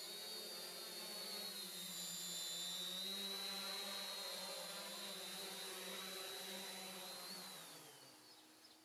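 Quadcopter's four electric motors and propellers hovering, a steady buzz with a high whine over it. Near the end the pitch drops and the sound fades as the motors wind down.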